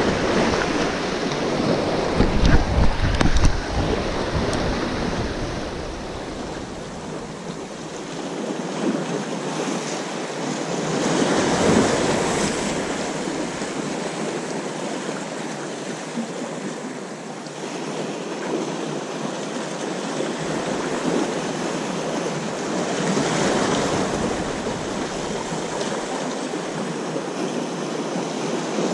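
Sea waves breaking and washing over the rocks of a jetty, swelling up roughly every ten seconds, with wind buffeting the microphone in the first few seconds.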